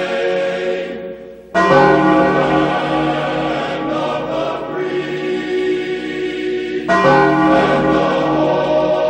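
A choir singing long held chords. The sound fades away just before the second second, then comes back in full on a new chord, with another chord change near the end.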